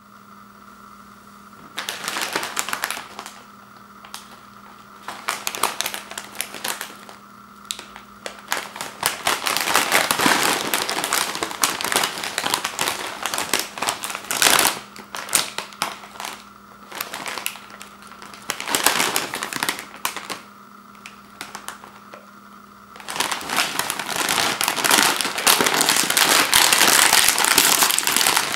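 Plastic potato chip bag with a foil lining crinkling in the hands in irregular bursts as it is picked up, turned over and handled. Near the end comes a longer, louder stretch of continuous crinkling as the sealed top is gripped to pull it open.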